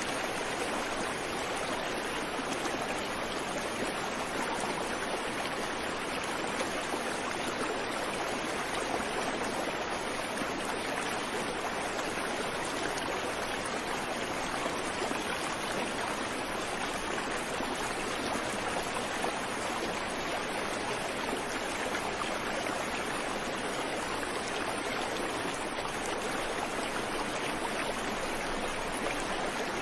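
A creek or small river flowing and rushing over stones: an even, unbroken water noise with no birds.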